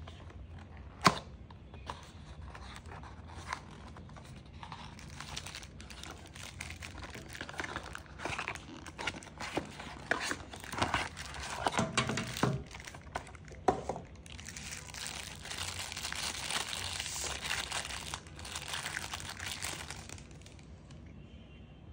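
Unboxing handling noise: a cardboard box knocked and slid open, then clear plastic wrapping crinkling and rustling as the contents are pulled out, densest near the end before it dies away.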